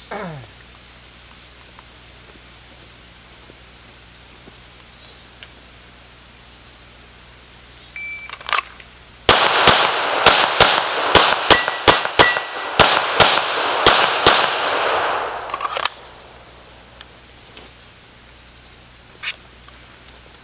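Sig Sauer P320 Legion 9mm pistol fired twelve times in fast groups of pairs and fours, as in a 2-2-4-2-2 drill, over about six seconds starting about nine seconds in.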